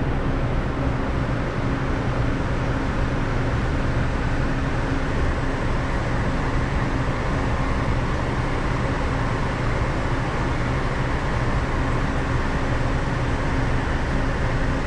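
Steady machinery drone: a constant low hum over an even rumble and hiss, unchanging throughout, the running equipment of a commercial kitchen.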